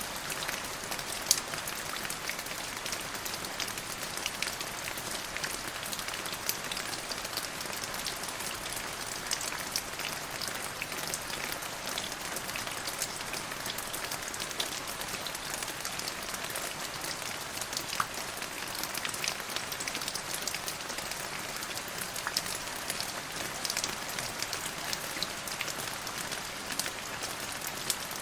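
Steady rain falling, an even hiss with many individual drops striking sharply throughout.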